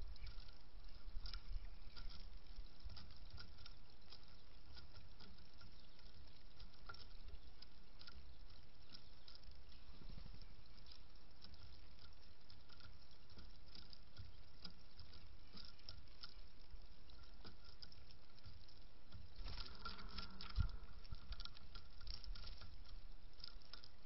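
Mourning doves pecking at sunflower seed on a wooden platform feeder: an irregular run of small clicks as seeds are picked and shifted. About twenty seconds in there is a louder flurry of rustling and clicking, with one sharp knock.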